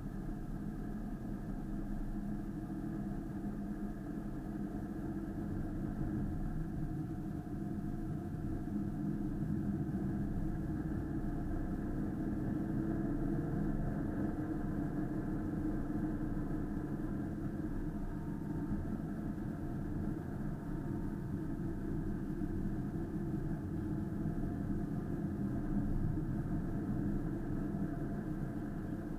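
Car engine and road noise heard from inside the cabin while driving, a steady low hum with no sudden events.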